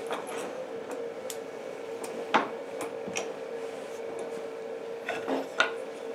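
Wooden hold-down clamps with bolts and washers being handled and set down on a perforated MDF CNC router table: a few light knocks and clatters, the loudest about two and a half seconds in, over a faint steady hum.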